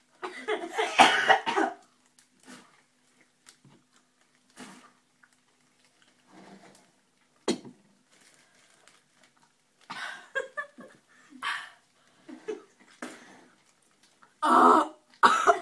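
Boys coughing hard on a mouthful of dry ground cinnamon: a loud coughing fit about a second in, scattered short coughs and splutters through the middle, and another hard bout near the end.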